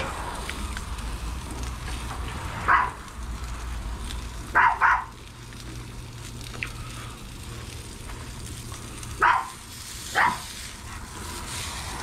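Gas grill burning with buns and sausages sizzling on its griddle plate: a steady hiss over a low rumble. A dog barks briefly four times.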